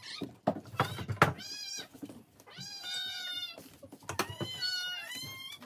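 A cat meowing for its breakfast: two long, drawn-out meows. Before them, in the first second or so, a few sharp knocks of food bowls being handled on the counter.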